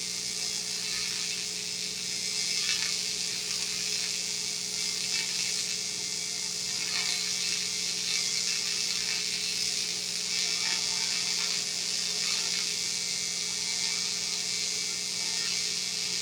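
AC TIG welding arc on an aluminum drive shaft: a steady buzzing hum under a bright, even hiss.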